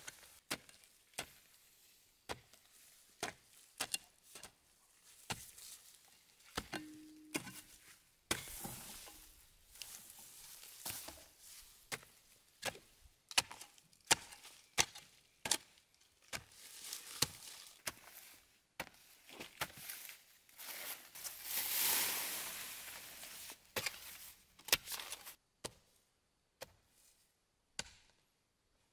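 A hand hoe chopping into soil and dry grass, a steady series of strikes about one to two a second, thinning out near the end. A louder rushing noise swells and fades about two-thirds of the way in.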